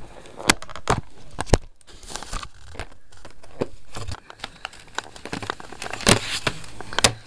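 A DVD box set's packaging being handled and opened: crinkling and rustling with a string of sharp clicks and knocks.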